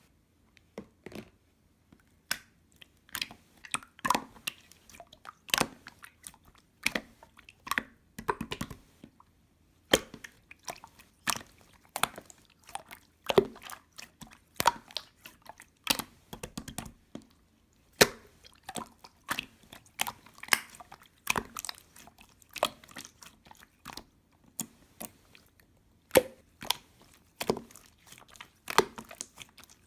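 Close-miked crunchy chewing and biting: irregular sharp crunches, several a second, with a few short pauses.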